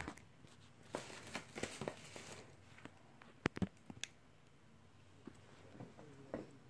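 Faint handling sounds at a plastic cutting board: light rustling, then a few sharp taps and clicks as hands handle cooked potato pieces.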